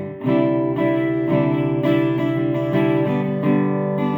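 Guitar strumming chords in a steady rhythm, each chord ringing on into the next.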